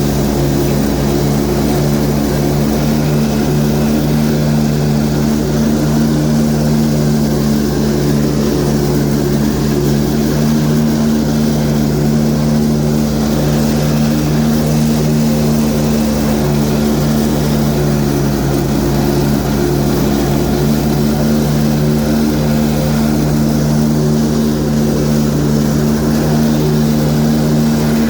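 Kubota Kamander zero-turn mower's Kohler engine running steadily under load, with the 48-inch deck's blades spinning at high tip speed as it cuts tall grass. A constant, unchanging hum throughout.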